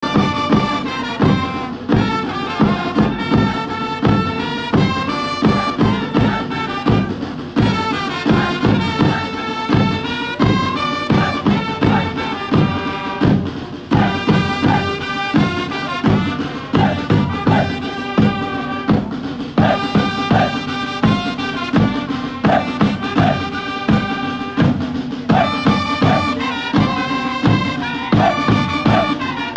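Music with a steady, regular drum beat under a melody line that moves and bends in pitch.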